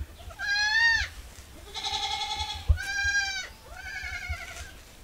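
Goats bleating: four calls in quick succession, each under a second long, some with a wavering, quavering pitch.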